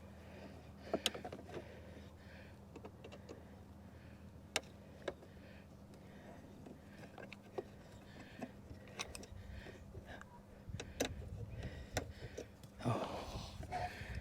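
Scattered sharp clicks and knocks of hands and tools working a Smart car's plastic outer mudguard loose from its fixings, over a steady low hum. A denser burst of rattling and scraping comes near the end.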